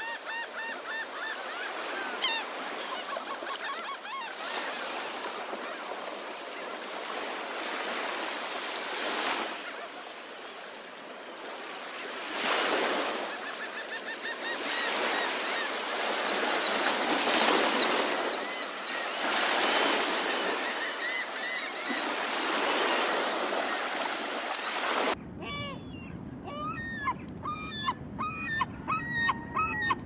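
Surf washing over a beach while a flock of gulls calls repeatedly in short laughing series. About 25 s in, this cuts abruptly to a single large herring gull's long call: a quick run of loud, sharp yelping notes with no surf behind it.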